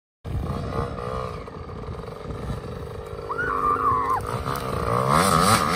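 Small two-stroke dirt bike engine running, its pitch wavering, then revving up and down repeatedly and getting louder near the end.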